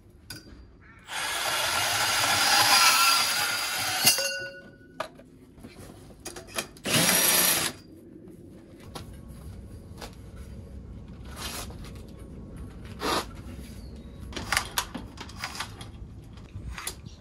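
A cordless band saw cuts through metal conduit for about three seconds. A few seconds later a cordless drill runs in a short burst in the cut end of the conduit, reaming it. Light clicks and knocks follow as the pipe and tools are handled.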